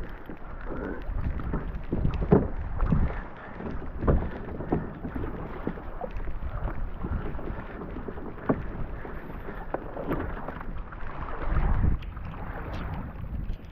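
Water splashing and slapping around a kayak's hull, with wind buffeting the microphone and scattered sharp knocks.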